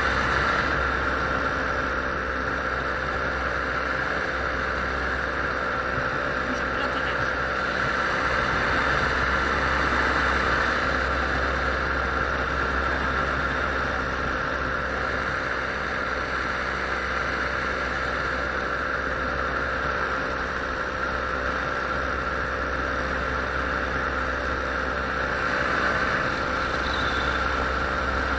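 Paramotor engine and propeller running steadily in flight, a constant drone with only slight swells in level.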